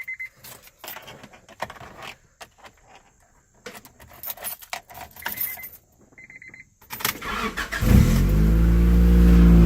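Keys jangling and clicking, with two short electronic beeps. About seven seconds in, the starter cranks and the 1996 Honda Accord's engine starts, running loud through its newly installed 3-inch exhaust pipe, its revs falling as it settles from the start-up flare.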